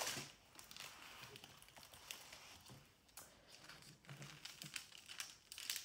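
Faint crinkling and rustling of the clear plastic film covering a diamond painting canvas as it is handled, in scattered short crackles with a louder rustle near the end.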